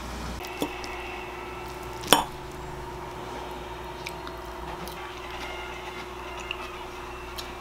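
Metal fork and spoon clinking and scraping on a ceramic pasta plate while spaghetti is twirled and eaten: one sharp clink about two seconds in, then a few light taps, over a steady low hum.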